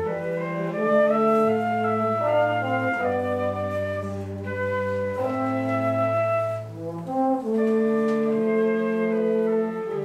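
Live chamber music on flute and cello: long held cello bass notes change every second or two under a slower-moving melody in the flute.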